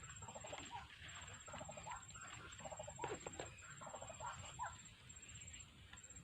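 Faint bird calls: a series of short repeated calls, over a high pulsing trill that breaks off now and then.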